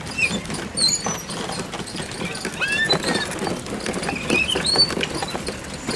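Busy street traffic heard from a cycle rickshaw: a steady low rumble with clatter and knocks, and many short high squeaks and chirps scattered throughout.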